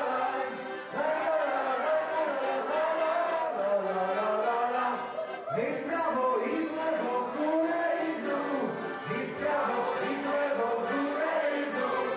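Festive party music with a steady, jingling percussion beat and a group of people singing along.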